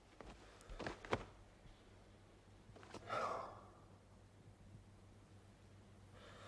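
A few light knocks about a second in, the sharpest the loudest moment. Then a person's long sigh about three seconds in, and a fainter breath near the end.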